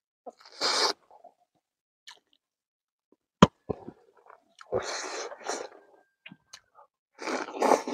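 Mouth sounds of a man eating rice and frog curry by hand: separate bursts of wet chewing and lip-smacking, with one sharp click a little past the middle.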